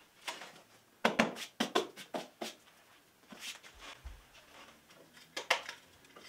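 Plant pots and small objects being handled and set down on a metal-framed glass shelf: a quick run of knocks and clinks about a second in, then a few more scattered taps.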